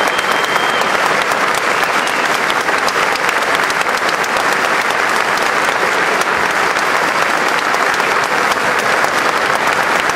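Large audience applauding steadily: dense, sustained clapping from many hands.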